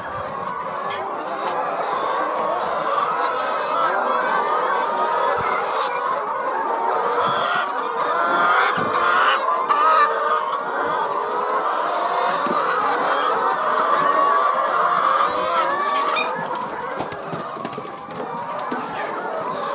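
A large flock of brown laying hens clucking and calling together, many overlapping voices without a break.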